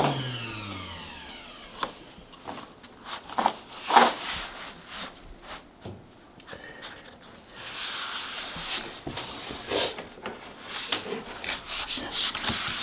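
A jigsaw motor winding down with falling pitch at the start, just after cutting a vinyl flooring plank. Then scattered light knocks, and from about the middle on, rubbing and scraping of the cut vinyl plank being handled.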